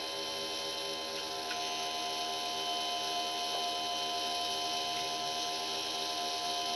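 DM-36-D dynamotor running on a 12-volt supply: a steady hum with a high whine over it. An alcohol-soaked cotton swab is held against its spinning commutator to clean it.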